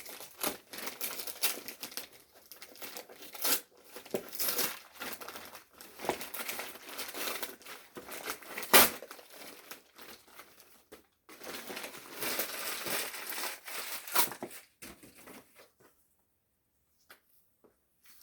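Gift wrapping being torn open and crumpled by hand, in uneven bursts of rustling and ripping that run for about fifteen seconds, with one sharp, loud rip about nine seconds in.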